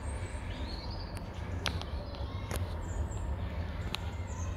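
Outdoor ambience: faint bird chirps over a steady low rumble, with four sharp clicks spread through the middle.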